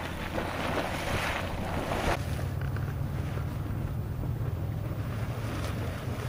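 Boiling water churning and splashing in Mustard Spring's hot pool, with wind on the microphone. About two seconds in the sound changes abruptly to a steady low wind rumble on the microphone with fainter water noise.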